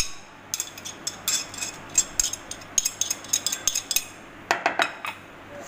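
Spoon scraping and clinking against a ceramic plate as ground spices are tipped off it into a bowl: a quick run of short scrapes, then a few louder clinks near the end.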